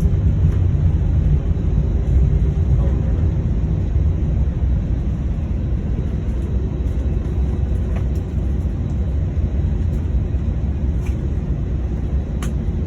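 Airbus A321 rolling on the ground after landing, heard from inside the cabin: a steady low rumble of engines and wheels that eases slightly as the aircraft slows.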